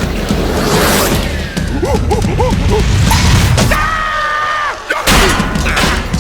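Slapstick cartoon soundtrack: a busy jumble of whooshes, thumps and crashes under music, with a run of short bouncing pitched chirps about two seconds in and a held high tone lasting about a second a little past the middle.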